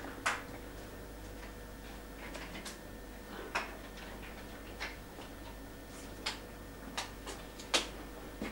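Irregular light clicks and taps of things being set down and handled, about eight or nine spread unevenly, the sharpest near the end, over a faint steady hum.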